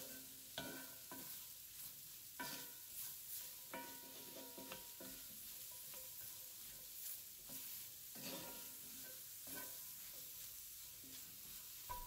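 Sliced baby bella mushrooms sautéing with a faint sizzle in a cast iron skillet, while a wooden spoon stirs them, scraping and knocking against the pan every second or two.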